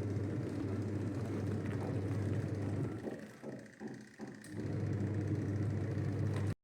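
Washing machine running on test after its gearbox repair, a steady motor hum that falters and drops out a few times in the middle, picks up again, then cuts off suddenly.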